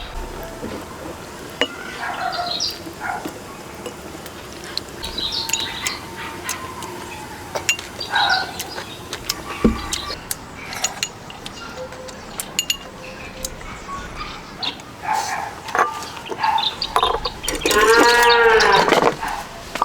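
Farm animals calling, with scattered short calls and clinks, then one loud, drawn-out animal call near the end that rises and falls in pitch.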